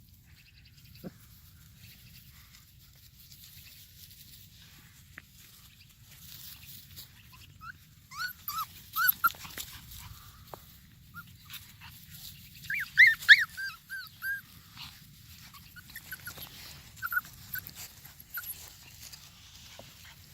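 Puppies whimpering and squeaking in short, high, arching calls, coming in clusters about a third of the way in and again around two-thirds of the way through.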